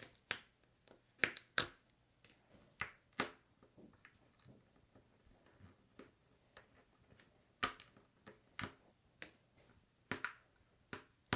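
Thin, bendy clear plastic jigsaw pieces clicking and tapping against a hard, smooth tabletop as fingers pick them up and fit them together: irregular sharp little clicks, a few louder than the rest.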